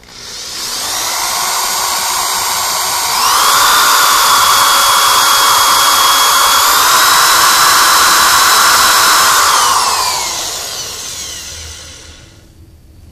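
Power drill boring into a broken steel bolt snapped off in an engine block's timing chain cover bolt hole. The motor spins up with a whine, speeds up further about three seconds in, runs steady under load, then winds down near the end.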